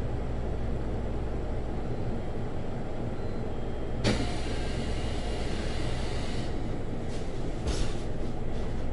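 Inside a JR Central 373 series electric train car: a steady low hum, then about four seconds in a sharp clack followed by a hiss lasting about two seconds, and another knock near the end.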